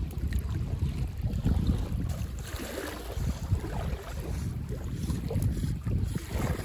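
Wind buffeting the microphone in an uneven, gusting low rumble, over faint lapping of small waves in shallow water.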